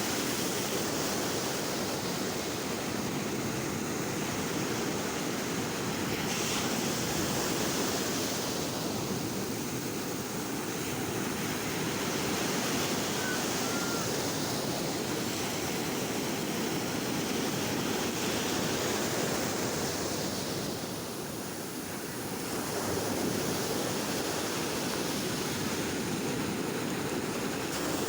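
Sea waves breaking and washing on a shore, a continuous surf that swells and eases in slow surges, with a brief lull about three-quarters of the way through.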